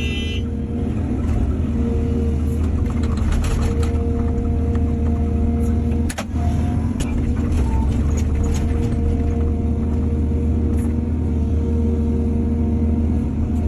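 Excavator's diesel engine and hydraulics running steadily under load, with a steady whine over the engine drone and a few metallic clanks, the sharpest about six seconds in.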